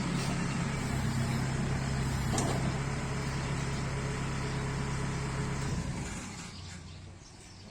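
Kubota DC-70 combine harvester's engine running at a steady speed, its low hum dying away about six seconds in.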